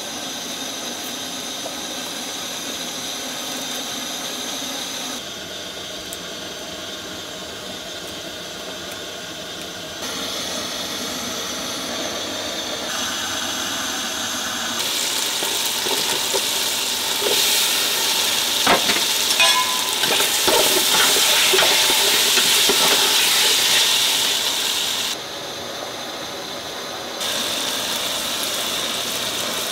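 Steady hiss of multi-jet ring gas burners fed from bottled-gas cylinders, burning under cooking pots. The hiss steps up and down in level a few times and is loudest through the middle, with a few clinks of utensils on the pots.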